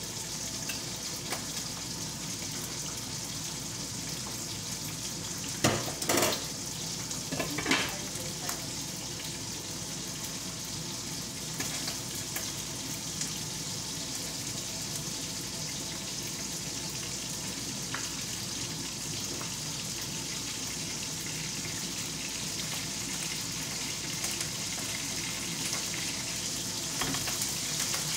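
Food frying in oil in a frying pan, a steady sizzle. Near six seconds in there are a few short clatters, and another about eight seconds in: metal striking the pan or its lid.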